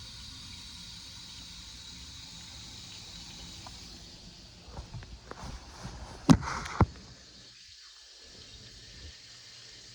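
Water running at the kitchen sink, a faint steady hiss that stops about four seconds in, followed by a handful of knocks and clunks of things being handled, the two loudest close together about six and a half seconds in.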